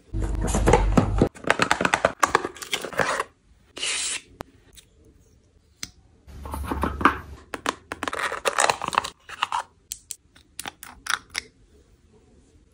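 Close-up handling of cosmetic packaging: noisy rustling and scraping that comes in two long runs, then a few quick light clicks near the end.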